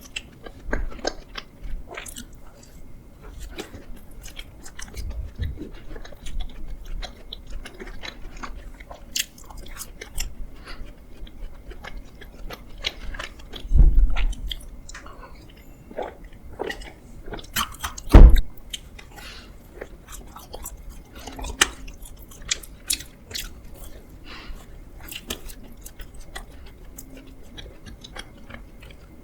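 Close-miked biting and chewing of doughnuts, with many short mouth clicks and smacks. About halfway through, two loud low thumps come a few seconds apart.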